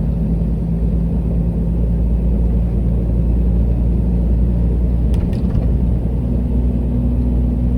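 Heavy truck's diesel engine and road rumble heard from inside the cab while driving, running steadily; the engine note changes pitch about five seconds in.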